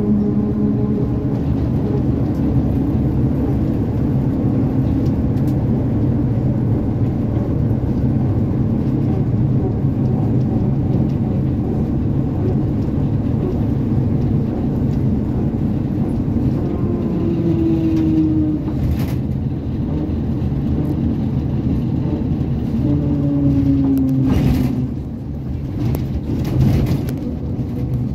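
ZiU-682 trolleybus on the move, heard from inside: a steady low rumble of road and running gear with the electric traction motor's whine, rising in pitch about two-thirds of the way in and falling again later. A few sharp knocks and rattles come near the end.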